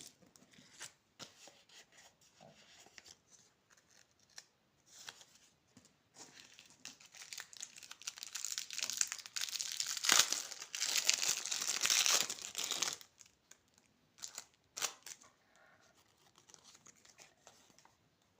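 Candy wrapper being crinkled and torn open: scattered crackles, then a few seconds of dense, louder crinkling and tearing in the middle, then a few sharp crackles and faint rustling.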